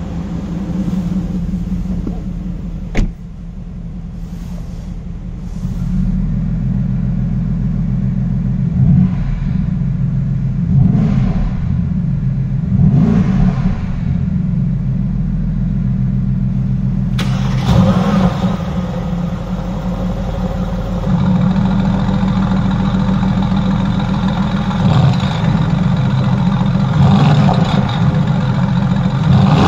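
A Mercedes-AMG GT's twin-turbo V8 idling steadily, with several short throttle blips that raise the revs and let them fall back. A single sharp click about three seconds in; from about halfway the engine sounds louder and brighter, heard from behind the exhaust tips.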